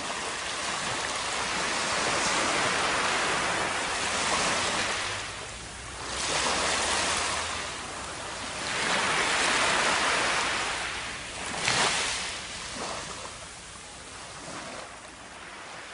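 Shallow surf washing up a sandy beach: about four surges of rushing water, each swelling and then fading, with a brief sharper splash about twelve seconds in.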